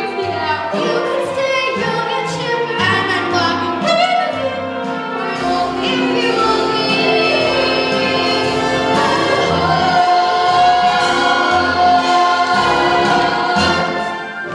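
A song from a stage musical: voices singing over instrumental accompaniment, getting quieter near the end.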